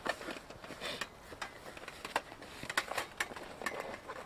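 Portable wood stove being handled and set up: a scattered, irregular series of light clicks and taps.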